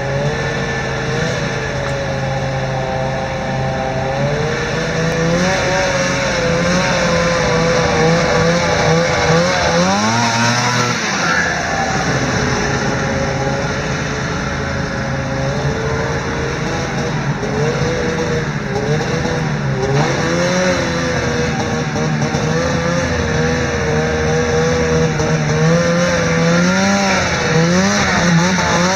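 1998 Arctic Cat ZR 500 snowmobile's 500cc liquid-cooled two-stroke engine running while ridden, its revs rising and falling. There is a quick rev up and back down about ten seconds in and several short revs near the end.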